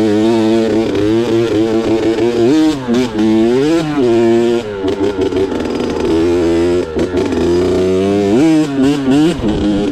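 Kawasaki KX65's 65 cc two-stroke single-cylinder engine running while ridden, the revs rising and falling in quick swings a few times in the middle and again near the end.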